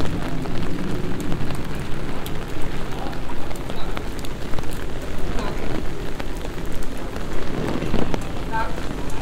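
Rain falling on wet paving, a steady patter of many small drops over a low, even hiss.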